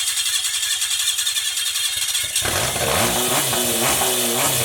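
Boat engine being cranked by its electric starter, with a harsh high-pitched grinding, typical of a starter gear that does not line up properly with the flywheel. About two and a half seconds in the engine catches and runs, its revs rising and falling unevenly.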